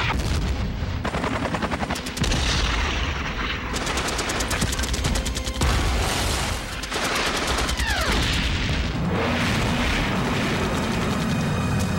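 Battle sound effects: rapid machine-gun fire and explosions, with a falling whistle about eight seconds in.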